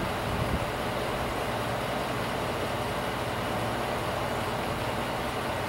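Ford F-150 pickup idling steadily with an even low hum.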